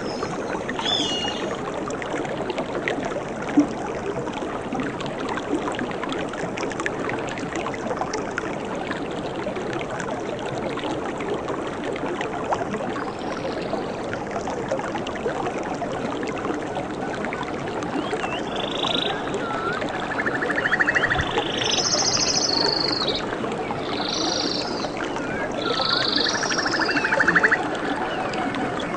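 Steady rush of flowing water in a natural soundscape. About two-thirds of the way in, animal calls join it: short, high, arched bird chirps and a few rattling, pulsed calls.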